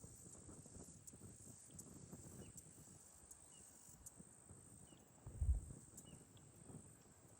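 A steady high-pitched insect chorus, like crickets, with a few short faint chirps over it. Low irregular rumbling runs underneath, with one louder low thump about five and a half seconds in.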